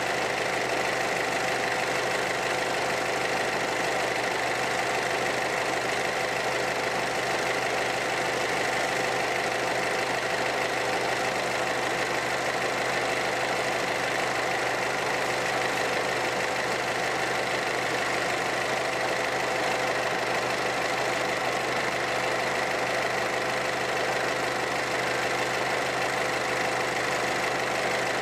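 Small diesel engine on a concrete mixer running steadily at an even speed.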